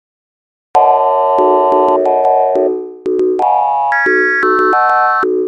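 Electronic synthesizer music made of plain, steady tones. After a moment of silence it plays two short phrases of stepped notes and chords, each ending in a fade.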